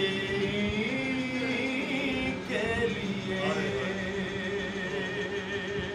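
A man singing a naat in Urdu devotional style, holding two long, wavering notes with a short break between them.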